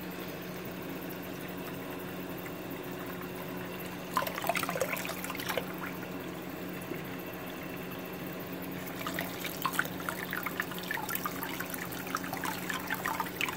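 Tap water running in a thin stream into a bathroom sink basin, over a low steady hum. Splashing as a hand moves through the stream about four seconds in, and again on and off from about nine seconds.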